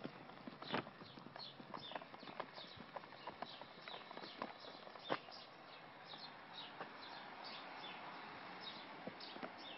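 Footsteps on pavement, about one or two a second and uneven in strength, with short high chirps repeating throughout.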